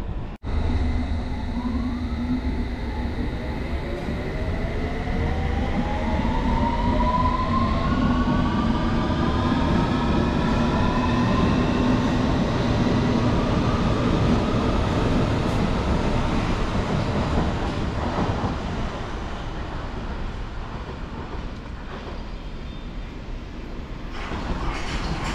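London Underground District line S7 Stock train pulling away, its traction motors whining in several tones that rise in pitch together as it accelerates, then fading as it leaves. Near the end the rail noise grows again as the next train comes in.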